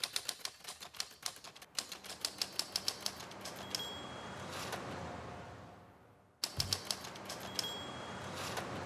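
Typewriter-key clacking sound effect of a show's title sting: a fast run of keystrokes ending in a short high ring and a fading wash of noise, then a second, shorter run of keystrokes with the same ring about six and a half seconds in.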